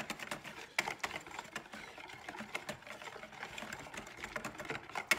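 Wire whisk stirring chocolate ganache in a mixing bowl, its wires knocking against the bowl in a quick, uneven run of clicks.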